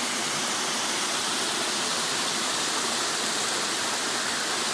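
Small waterfall pouring into a pool, a steady, unbroken rush of falling water.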